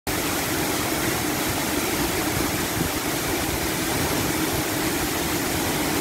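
Steady rush of a tall twin waterfall and the fast white-water stream below it, an even, unbroken roar of falling and running water.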